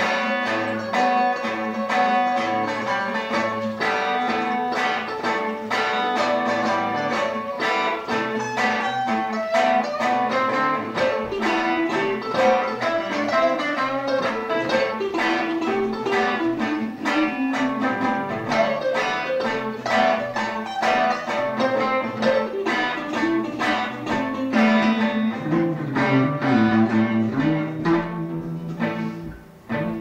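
Electric and acoustic guitars playing an instrumental rock and roll jam together, busy picked notes over a moving bass line, dropping away briefly near the end.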